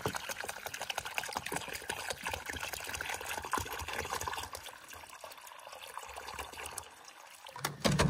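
Water pouring from a plastic gallon jug into a chickens' black water bowl, splashing as it fills. The pour weakens about halfway through and stops near the end.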